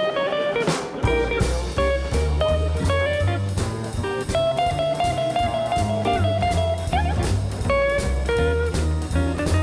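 Background music: an instrumental with a guitar melody over bass and drums. The bass line comes in about a second in.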